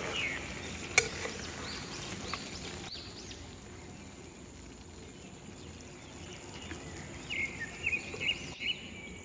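Long metal spatula stirring chicken curry in a metal cooking pot, with one sharp clank about a second in, over a steady background hiss. A run of short, high chirps comes near the end.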